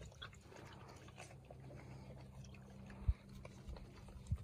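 Faint sounds of Wirehaired Pointing Griffon puppies drinking from a stainless steel puppy waterer and scampering on concrete, over a steady low hum. Two dull low thumps about a second apart near the end.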